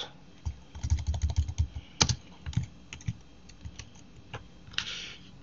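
Typing on a computer keyboard: irregular key clicks, with one louder keystroke about two seconds in.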